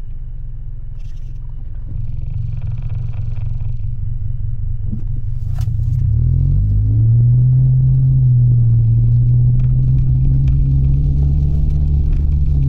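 Mitsubishi Delica driving, a low engine and road rumble. About six seconds in, the engine note rises and grows louder as it pulls, then holds steady.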